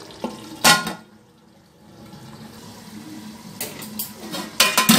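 Metal clanking of an aluminium cooking pot and its lid: one sharp clank about a second in, then a quick run of clatters near the end as the lid is handled.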